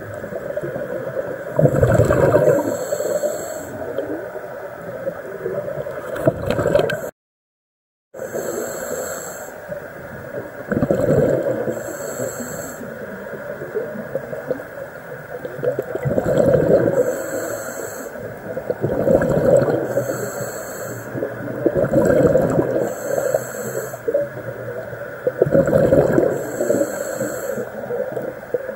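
Scuba diver breathing through a regulator underwater: a gurgling rush of exhaled bubbles every three seconds or so, some breaths with a hiss, heard through the camera housing. The sound cuts out for about a second about seven seconds in.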